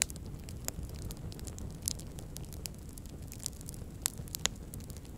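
Wood fire burning in a metal brazier, crackling with scattered sharp pops over a low steady rumble; the loudest pops come about two seconds in and twice about four seconds in.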